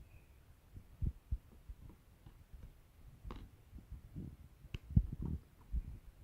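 Irregular soft low thuds and bumps with a few sharper clicks, the loudest thud about five seconds in.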